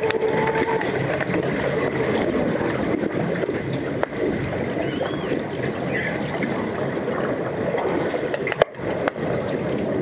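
Underwater hockey play heard underwater: a dense, steady churning of water and bubbles from finning players, broken by a few sharp clicks, two of them close together near the end.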